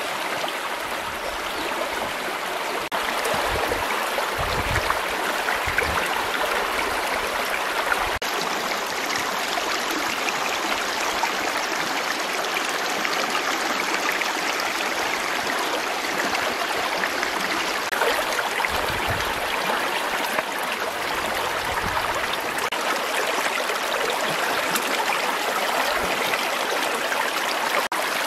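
Shallow river water flowing steadily over stones and through a woven bamboo fish trap, a continuous rush of water.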